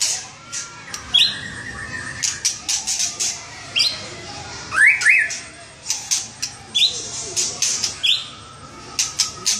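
White-rumped shama singing a varied song: short whistled notes that sweep upward, mixed with many harsh, rasping chatter notes.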